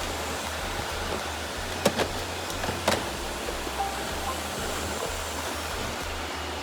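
Robot vacuum running with a steady rushing motor and airflow noise, with two sharp clicks about two and three seconds in.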